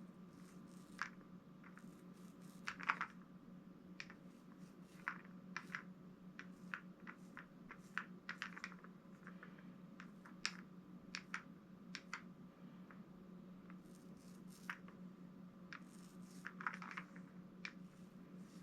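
Faint, irregular clicks and light taps from a small foam paint roller being worked over the raised lettering of a metal sign, over a steady low hum.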